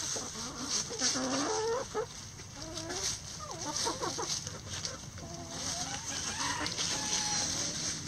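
Backyard hens clucking as they forage, with many short calls that rise and fall in pitch, several at a time.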